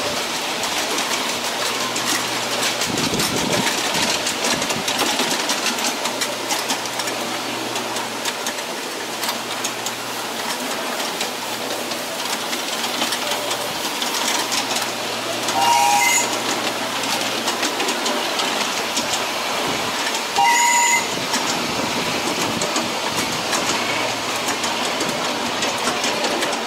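Passenger cars of a ride-on miniature railway rolling along the track, the wheels clicking over the rails. The locomotive's whistle sounds two short blasts, the second about five seconds after the first.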